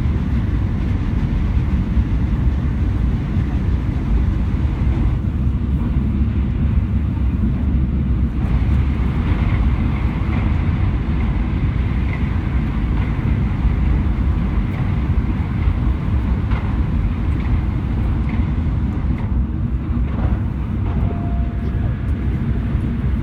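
Shinkansen bullet train running, a loud, steady low rumble without let-up.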